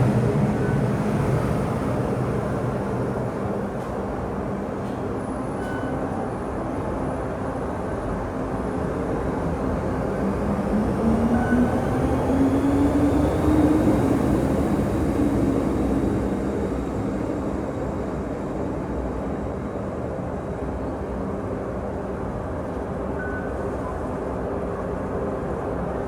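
MTR M-Train carriage interior: the train running on the track with steady rolling noise. About ten seconds in, a low whine rises in pitch and grows louder, then fades back into the running noise.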